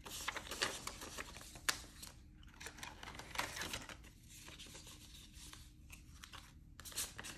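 Paper banknotes rustling and sliding against each other as a stack of prop bills is pulled out of a binder envelope and handled along with a paper currency strap, in faint, irregular strokes.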